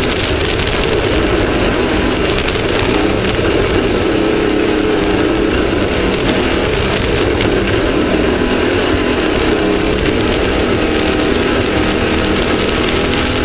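Off-road race vehicle's engine running hard at speed, its pitch rising and falling with the throttle, under a constant loud rush of wind and rough-terrain noise.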